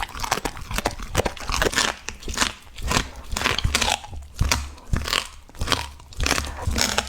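A dog chewing and crunching raw beef and bone, with bites coming roughly every half second to a second and a few brief pauses between them.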